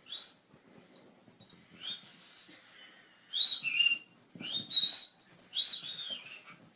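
A dog whining: about five high-pitched, drawn-out whines that rise and fall in pitch, the last three loudest.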